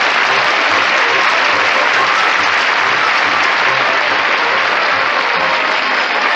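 Studio audience applauding, with a band playing underneath to a steady low beat.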